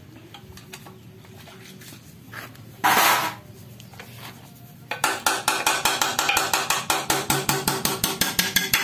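Metal tools working on a dismantled manual gearbox: a few light clicks, a brief loud noisy burst about three seconds in, then from about five seconds a fast run of sharp metallic strikes with a ringing tone, around eight a second.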